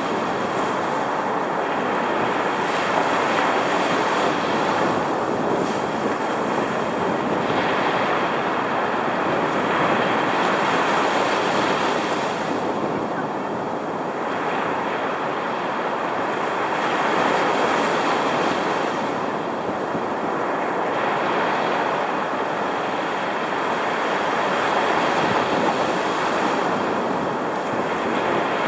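Heavy storm surf breaking and washing up the beach, heard right at the water's edge: a continuous rushing roar whose hiss swells and fades every few seconds as the waves come in.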